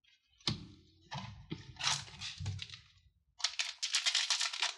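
Trading cards being handled and laid down on a table, with a sharp click and a few light knocks, then a dense crinkling of a booster pack's plastic wrapper for about a second as it is picked up.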